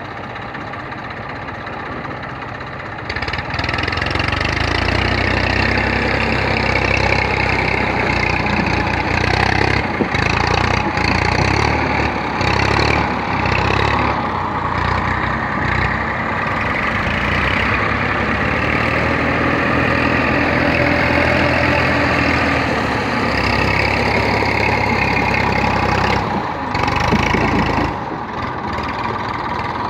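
Tafe 45DI tractor's diesel engine running steadily. It gets louder about three seconds in, with a brief dip in level near the end.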